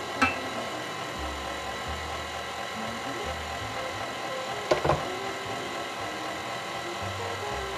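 KitchenAid Classic stand mixer running steadily with its paddle attachment, beating flour into red velvet cake batter: a steady motor whine. There is a sharp click just after the start and a brief knock about five seconds in.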